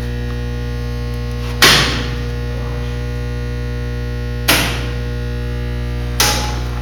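Steady electrical mains hum, loud and buzzing with many overtones, broken by three sharp clacks about 1.5, 4.5 and 6 seconds in: circuit breakers being switched, with the hum carrying on unchanged.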